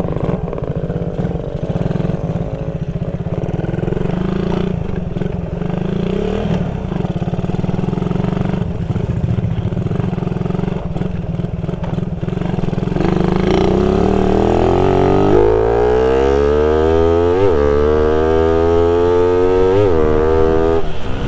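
Suzuki Raider 150 motorcycle, fitted with a 32mm carburettor, ridden slowly over rough gravel with a steady engine note. About two-thirds of the way through it accelerates hard on pavement: the engine note climbs steadily, with two brief jumps and drops near the end as gears change.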